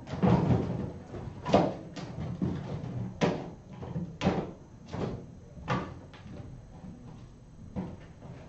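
A string of irregular knocks and thumps, about nine in all, the loudest about a second and a half in, like things being knocked or a cupboard door or drawer being handled.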